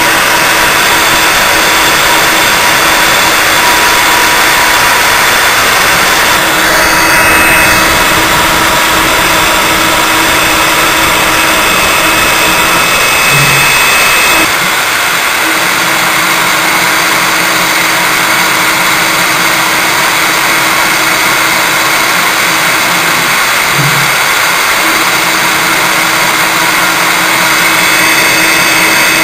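CNC router spindle running while its bit engraves lettering into a grave-marker plate: a loud, even hiss with a few steady tones, dropping slightly in level about halfway through.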